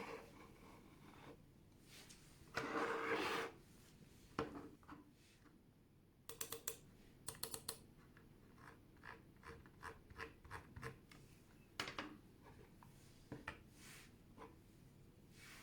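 Logitech M330 Silent Plus wireless mouse being handled on a desk: a brief rubbing, scraping slide, then scattered faint, muffled clicks and ticks, some in quick clusters.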